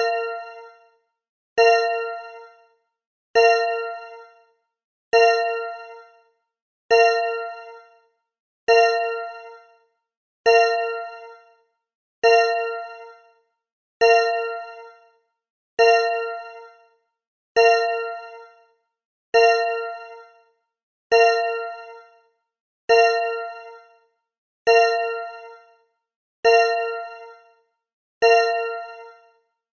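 A metallic ding sound effect struck again and again, about every two seconds, each strike ringing with a clear low tone and bright overtones and fading out within about a second before the next.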